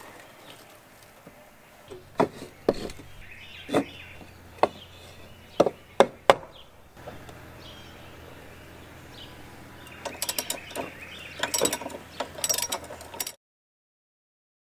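Ratchet wrench clicking on the blade bolt of an upturned push lawnmower, with a blade blocked by a wood wedge. Several sharp knocks come first, then quick runs of ratchet clicks, and the sound cuts to dead silence near the end.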